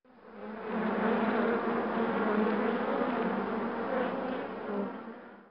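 Honeybees buzzing in a steady hum that fades in over the first second and fades out near the end.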